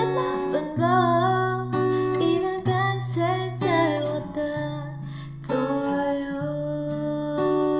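Mandarin pop ballad: strummed acoustic guitar over a bass line, with a sung melody that wavers in pitch through the first half.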